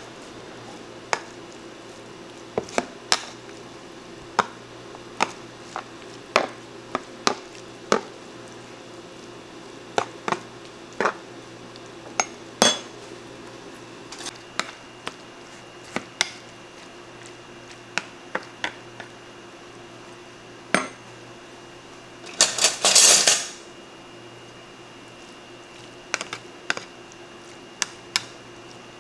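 Dishes and metal utensils clinking: scattered single clinks roughly once a second, with a louder burst of noise lasting about a second about three-quarters of the way through, over a steady faint hum.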